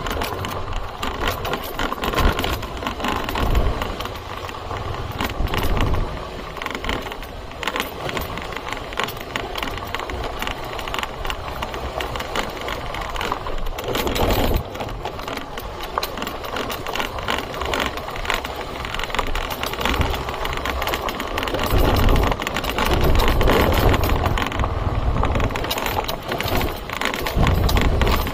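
Motorbike engine running at low speed along a rough dirt track, with frequent rattles and knocks as the bike jolts over the bumps.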